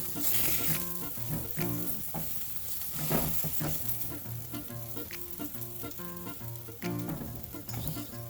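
Food frying in a pan with a steady sizzle and occasional sharp clicks of a utensil, over background music with short repeating notes.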